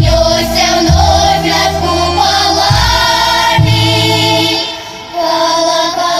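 A Russian folk-song ensemble's choir singing in harmony with vibrato over low, held accompaniment notes, with a brief drop in loudness about five seconds in.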